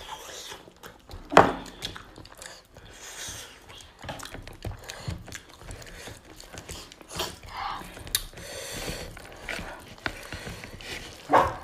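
Close-miked mukbang eating sounds: two people chewing and smacking while their fingers squish and tear curried meat and rice on their plates, as a string of small irregular clicks. Two louder, sharper sounds stand out, one about a second and a half in and one near the end.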